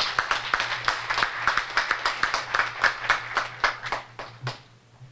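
People applauding, with dense clapping that thins out and dies away about four and a half seconds in.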